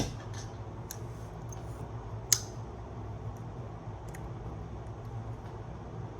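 A few small clicks and taps from desoldering work on a turntable circuit board, with one sharp click about two seconds in, over a steady low hum.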